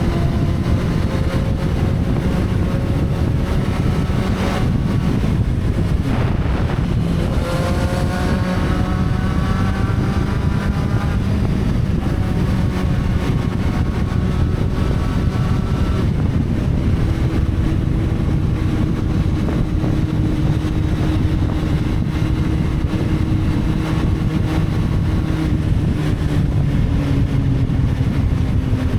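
Motorcycle engine running at road speed under a steady rush of wind on the microphone. The engine note climbs for a few seconds about a third of the way in, then settles and shifts pitch again later.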